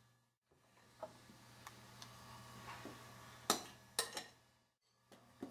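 Light clinks and taps of a spoon against a mixing bowl and metal muffin tin as the tins are filled: a few separate sharp clicks, the loudest two close together about three and a half seconds in.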